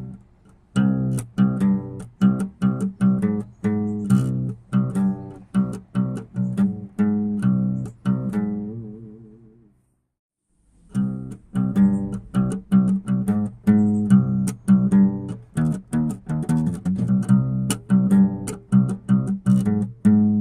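Background music: a rhythmic plucked-guitar and bass tune that fades out about eight seconds in, goes briefly silent, and starts again about a second later.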